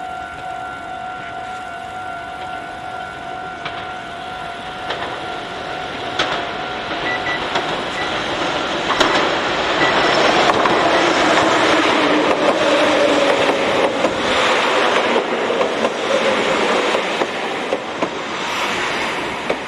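A Meitetsu Seto Line red electric train comes round the curve and passes close by, its running noise on the rails swelling from about nine seconds in, with a falling whine as it goes past, and easing near the end. Over the first several seconds a steady ringing tone sounds, the level-crossing warning bell.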